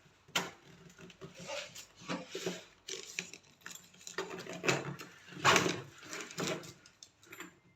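Hands handling a new suitcase: irregular clicks, knocks and rustling, with a louder cluster of knocks about five and a half seconds in.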